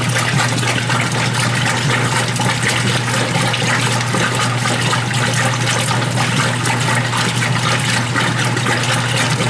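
Washing machine running through its cycle: a steady rush of water in the drum over a constant low hum.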